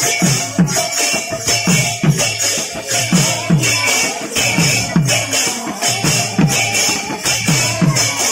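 Kirtan music on double-headed barrel drums beaten in a fast, steady rhythm of about two deep strokes a second, each sliding down in pitch, under a continuous jingling, shimmering percussion.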